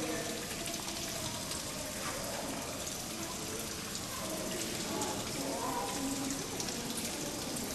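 Steady rushing background noise, with faint distant voices now and then.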